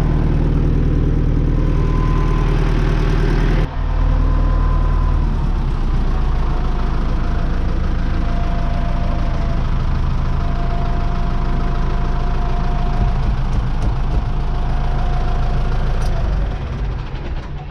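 Tractor engine running steadily close up, with a faint whine over a low rumble; the sound breaks off briefly and picks up again about four seconds in.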